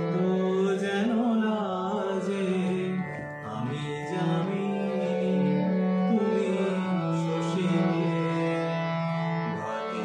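A man singing a slow melody in an Indian classical style, with wavering, ornamented notes, over a steady sustained drone-like accompaniment.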